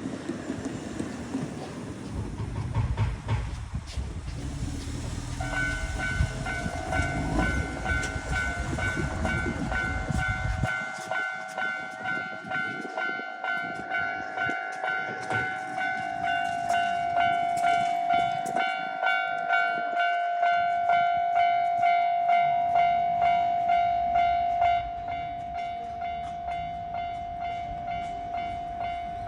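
A Keisei train rumbles and clatters past a level crossing, fading out about ten seconds in. About five seconds in, the crossing's warning bell starts its 'kan-kan-kan' clanging, just under two strikes a second, and keeps ringing after the train has gone, a little softer near the end.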